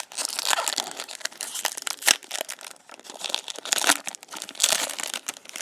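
Wrapper of a Topps Big League baseball card pack crinkling and crackling as it is torn open and handled. There are louder bursts of crinkling about two seconds in and again around four to five seconds in.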